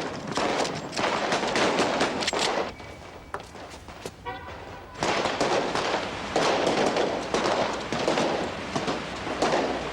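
Gunfire in rapid, dense volleys of many shots, with a lull of about two seconds near the middle before the firing resumes.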